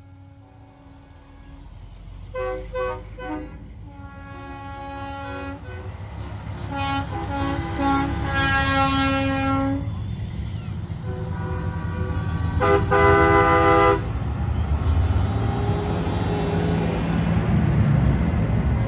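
Semi trucks' air horns blowing: two short toots, then a long blast of about two seconds, then another blast of about a second. Under them the rumble of diesel truck engines grows steadily louder as a truck rolls close past.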